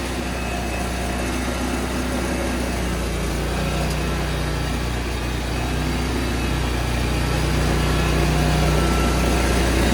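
Petrol engine of a Vigorun MTSK1000 remote control flail mower running steadily just after starting, growing a little louder toward the end.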